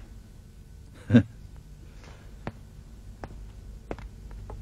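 A telephone handset set down with a dull thud about a second in, followed by a few light clicks of handling, over quiet room tone.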